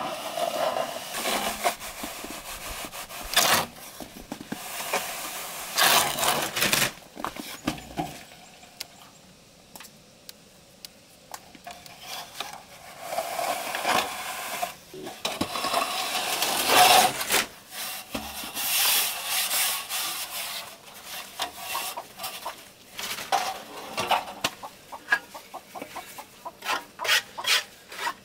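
Metal straightedge scraped across wet cement render on a wall, leveling the plaster in long scraping strokes. The scraping pauses briefly about ten seconds in and turns to a quick run of short scrapes near the end.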